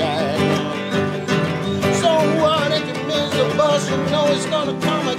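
A man singing held, wavering notes over a strummed nylon-string classical guitar.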